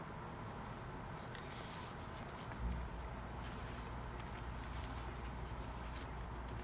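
Faint rustling and handling of paper and card as the pages and tags of a handmade junk journal are moved, with a soft thump about two and a half seconds in.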